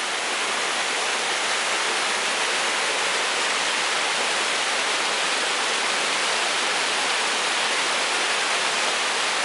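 Waterfall pouring steadily: a dense, even hiss of falling water with no breaks.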